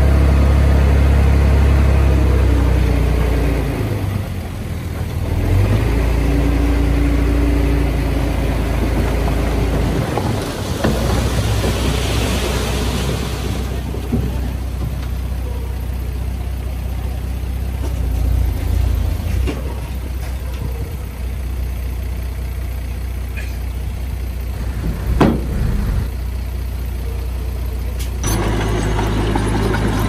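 Heavy diesel engines of earthmoving machinery (bulldozer and dump trucks) running with a steady low drone that shifts in speed, with a hiss partway through.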